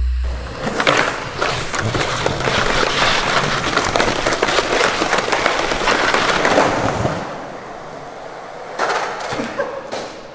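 Skateboard rolling on a smooth concrete floor: a continuous rough rumble of the wheels with small clacks of the board, dying away about seven seconds in. A short clatter follows about nine seconds in.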